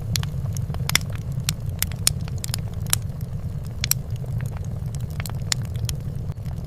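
Fireplace fire crackling: irregular sharp pops, several a second, over a steady low rumble.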